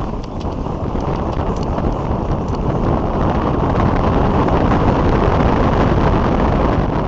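Wind buffeting an outdoor microphone: a loud, steady rumbling noise with no distinct calls.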